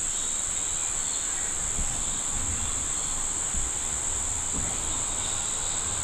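Chorus of insects in the forest giving one steady, shrill, unbroken high drone, with some low rumbling underneath.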